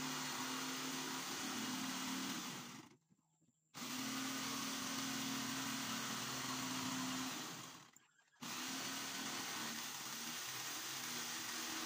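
Corded electric jigsaw cutting a curve in a palochina (pine) board: a steady motor whine with the rasp of the reciprocating blade. The sound cuts out twice for a moment, about three seconds in and about eight seconds in.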